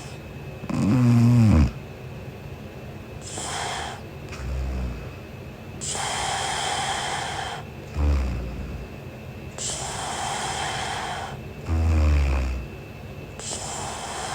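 A sleeping woman snoring in a slow, even cycle of about four seconds: low snores, the loudest and most pitched about a second in, alternating with long breathy breaths.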